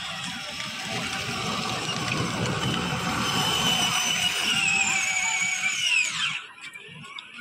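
Electric drive motors and gearboxes of a battery-powered ride-on toy jeep whining as it drives. About six seconds in the whine drops sharply in pitch and stops as the motors wind down.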